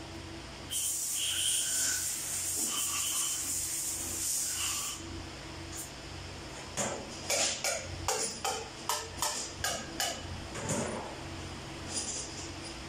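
A steady hiss for about four seconds, then a quick run of about ten sharp taps on metal, roughly three a second, from hand work on engine parts at a workshop bench.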